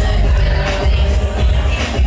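Loud recorded music with heavy bass playing over a sound system.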